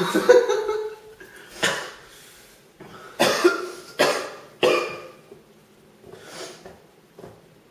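A man coughing in a string of sharp coughs, about five strong ones, then fainter ones toward the end, his throat burning from a 550,000-Scoville hot sauce he has just swallowed.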